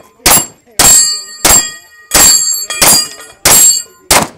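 Glock 19 9mm pistol firing a steady string of seven shots, about one every two-thirds of a second. Each shot is followed by the ring of steel targets being hit.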